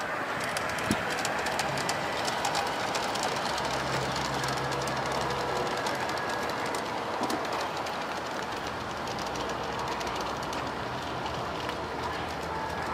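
Garden-railway model freight train running along outdoor track, its wheels making a rapid, light clickety-clack over the rails, with a low hum for a couple of seconds about four seconds in.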